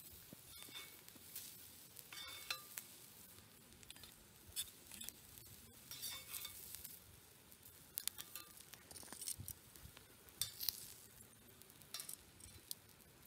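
Onions and meat frying faintly on a flat steel griddle, with scattered scrapes and clinks of a metal spatula and tongs against the griddle and a metal pan.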